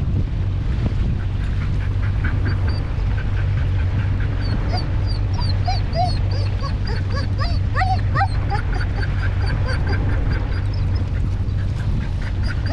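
Steady low hum of a boat's motor under many short, high squeaky animal calls, repeated several times a second from about two seconds in, with a few louder sliding cries in the middle.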